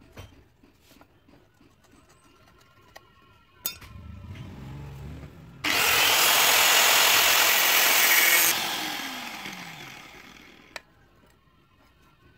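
An electric angle grinder with a thin cutting disc starts and spins up. About halfway through it bites into the steel of an old sickle blade, with a loud, even hiss for about three seconds. It then spins down with a falling whine, and a single sharp tick follows.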